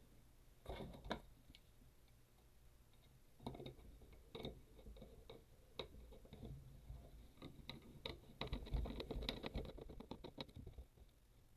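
Faint clicks and taps of small screws being handled and driven with a screwdriver into a plastic shower head, with a quicker run of ticking about eight seconds in.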